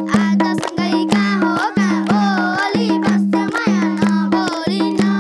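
A boy singing a Nepali folk song to his own madal hand-drum playing, the drum's deep note repeating about twice a second in a steady rhythm. Children clap sharply in time and sing along.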